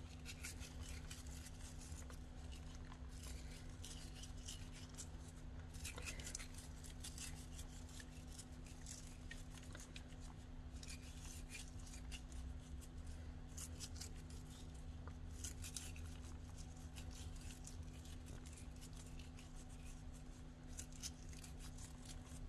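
Rosemary sprig being stripped and crumbled between fingers: a continuous patter of faint, crisp crackles and rustles, over a steady low electrical hum.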